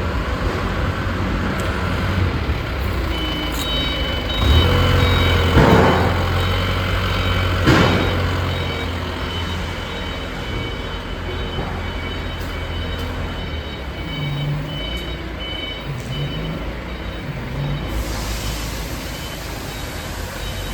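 A vehicle engine running steadily while a high-pitched reversing alarm beeps over and over, starting a few seconds in. Two short, loud noises stand out near the middle.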